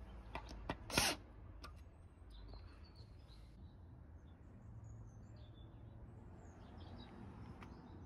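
A cordless drill driver gives one short burst about a second in, driving a wood screw into a pine beam. After that only faint, scattered bird chirps over a low background hum.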